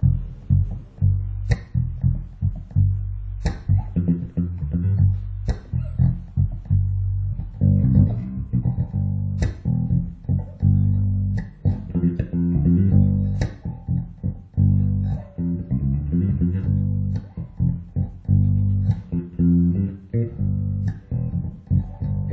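FL Custom Master Custom 006 five-string electric bass played through its Aero H-series pickups: a continuous run of low notes, some struck with sharp, percussive attacks every couple of seconds.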